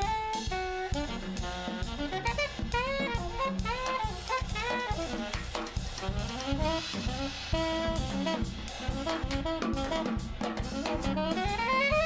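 Alto saxophone improvising a jazz solo in quick runs that rise and fall, over a drum kit with busy cymbal work and upright bass.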